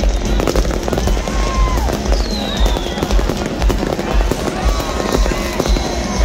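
Fireworks display going off continuously: rapid crackling bangs over low booms, with a couple of whistling shells gliding down in pitch.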